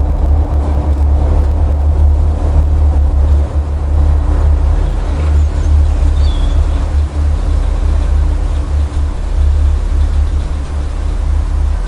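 A loud, steady low rumble, with a few faint high chirps about six seconds in.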